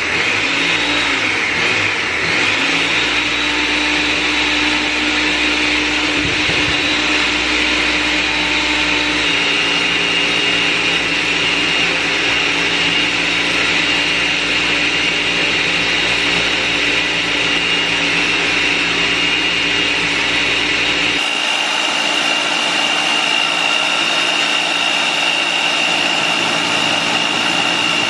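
Ninja blender running continuously, blending frozen fruit with milk into a smoothie: a steady, loud motor whine with a grinding wash. About nine seconds in its tone shifts slightly higher, and about twenty-one seconds in the low rumble drops out.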